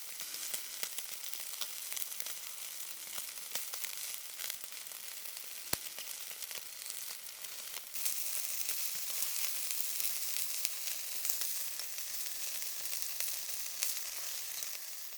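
Meat frying on a hot camp grill pan: a steady high sizzle with scattered pops and spits, getting louder about eight seconds in.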